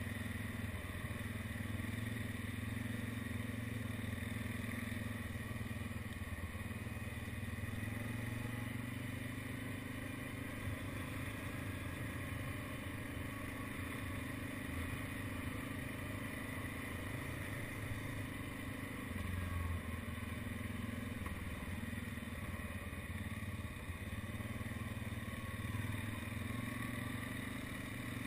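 ATV engine running steadily as the quad rides a dirt trail. Its note dips for a moment about two-thirds of the way through, then picks up again.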